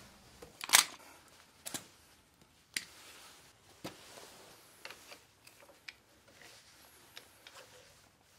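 Sharp metallic clicks and taps, roughly one a second and the loudest about three-quarters of a second in, from hand tools and parts being handled while a garden tractor's wheel hub and spindle are taken off.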